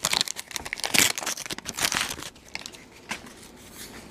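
Wax-paper wrapper of a vintage baseball card pack being torn open and crinkled, with the cards handled as they come out. The crackling is busiest in the first couple of seconds, then dies down to faint handling.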